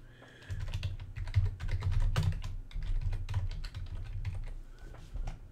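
Fast typing on a computer keyboard: a quick run of keystroke clicks that starts about half a second in and thins out near the end.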